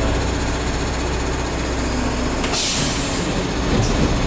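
Metra commuter train running, heard from inside the passenger car: a steady low rumble and drone, with a short hiss about two and a half seconds in.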